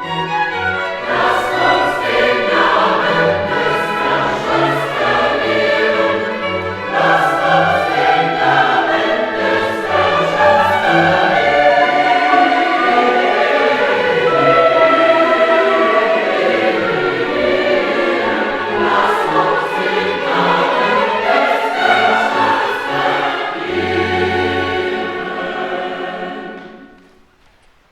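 Choir singing classical sacred music with instrumental accompaniment; the piece dies away near the end.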